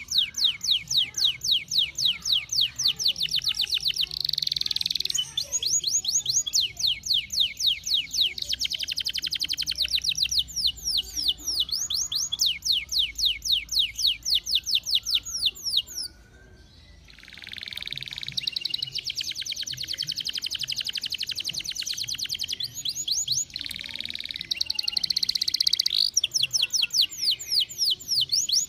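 Domestic canary singing: long, rapid trills of repeated high downslurred notes, broken by buzzier rolled phrases. The song stops briefly a little past halfway, then resumes.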